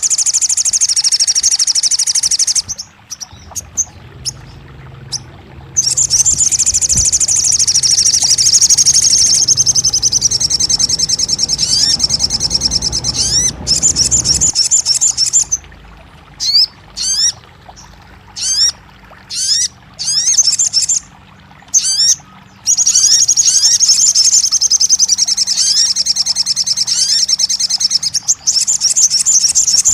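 Songbird singing loudly and continuously: long, very rapid high trills alternate with runs of short, quick rising chirps in the middle stretch.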